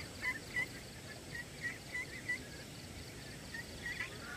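Night-time animal sounds: a steady, rapidly pulsing high insect trill, with short repeated chirping calls from a small animal coming in small clusters.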